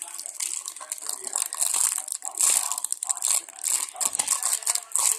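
Packaging crinkling and rustling as it is handled, with quick irregular crackles.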